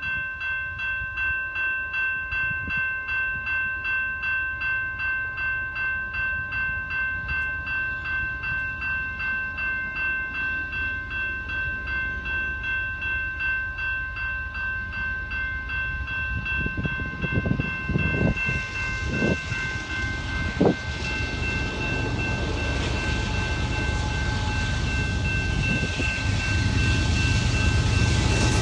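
Railway crossing warning bell ringing in a steady pulse of about two strokes a second. From about eighteen seconds in, the rumble of an approaching Canadian Pacific freight train builds and grows louder, with the warning tone still sounding under it and a couple of brief thumps.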